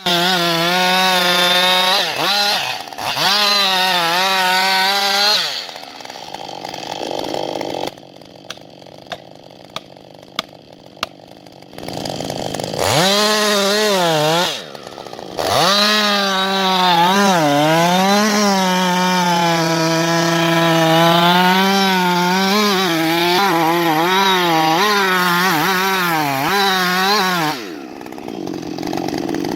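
Chainsaw running at high revs through a cut, its pitch dipping and recovering as the chain bites into the wood. It drops back twice, about six and fifteen seconds in, with a quieter stretch of a few sharp ticks in between, and stops near the end.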